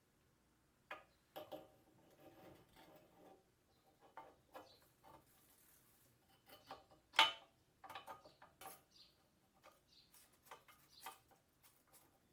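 Irregular light clicks and knocks, with one sharper knock about seven seconds in, and faint bird chirps in the background.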